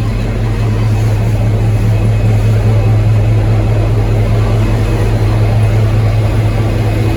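Diesel engine of a V/Line N class locomotive running steadily, a loud low hum with a rumbling haze above it and no horn sounding.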